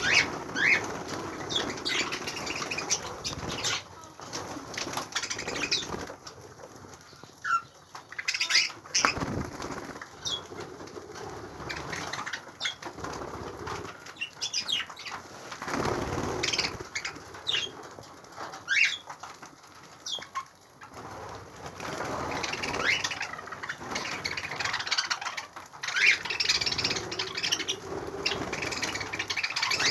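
Budgerigars chirping in short, scattered calls over the rustle and flutter of flapping wings.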